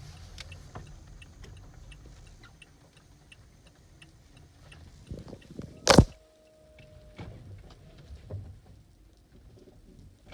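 Toyota Aqua's turn-signal indicator ticking at an even pace inside the cabin during a U-turn. One loud sharp knock comes about six seconds in.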